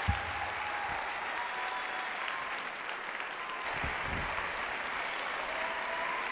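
Theatre audience applauding steadily, with a brief low thump just at the start and another about four seconds in.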